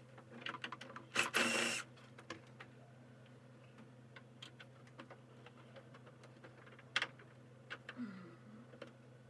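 Scattered clicks and taps of hardware being handled during the disassembly of a projector, with a short scraping rustle about a second in and a sharper click near the end, over a steady low hum.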